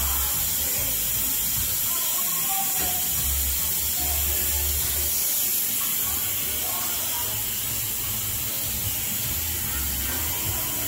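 Instant Pot electric pressure cooker releasing steam through its vent: a steady hiss.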